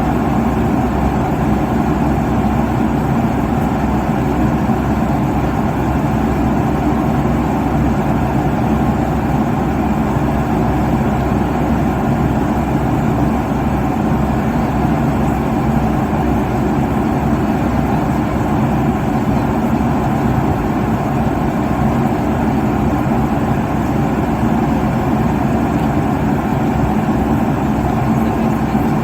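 Airliner cabin noise at cruising altitude: a steady, even rush of engine and airflow noise, mostly low and middle in pitch, with a faint steady hum underneath.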